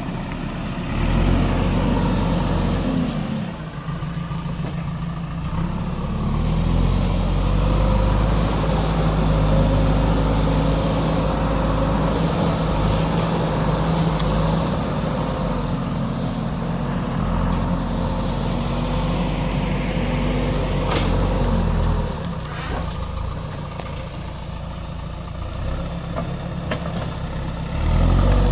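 Diesel engine of a JCB backhoe loader running under changing load, its revs rising and falling as the machine works, with a few sharp knocks.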